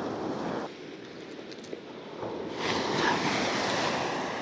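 Sea waves washing onto the beach, one wave surging in about two and a half seconds in and slowly fading.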